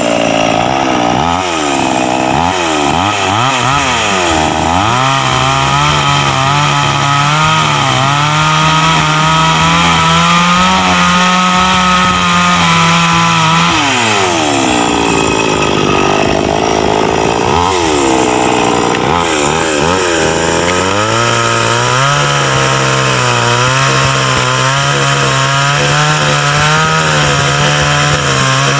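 Two-stroke chainsaw cutting wood, its engine held at high revs for long stretches and dropping and climbing back several times as the throttle is eased and opened again, with two deeper dips about halfway through.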